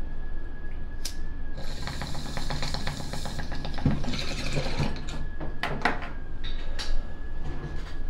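Straight-tube glass bong being hit: a lighter clicks, then water in the tube bubbles in a rapid rattling run for about two seconds as smoke is pulled through, with a second, shorter run of bubbling about four seconds in.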